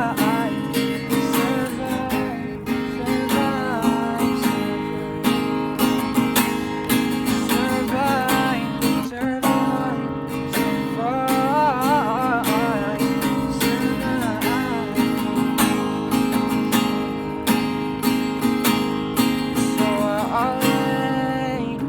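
Acoustic guitar strummed in a steady rhythm, with a voice singing short phrases a few times over it.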